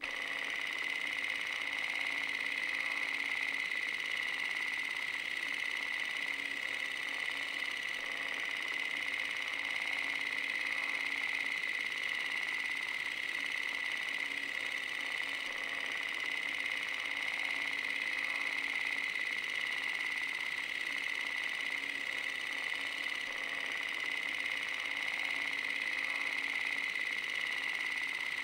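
Film projector running with a steady mechanical whir and a constant high whine.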